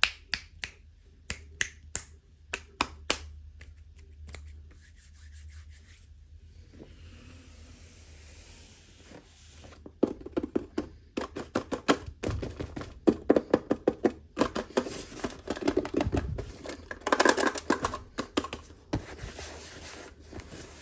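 Toy packaging being handled and opened by hand: sharp separate clicks and taps at first, a soft rustle from about six seconds in, then a dense run of clicking, scratching and crinkling from about ten seconds in.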